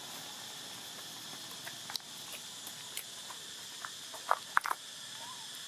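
Steady high insect drone, with a few short sharp squeaks and clicks over it. The loudest is a quick cluster of three about four and a half seconds in.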